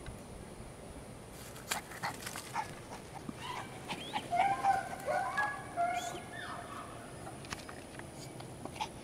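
Puggle puppy whining and yipping in a run of short, high cries through the middle, after a few light knocks near the start.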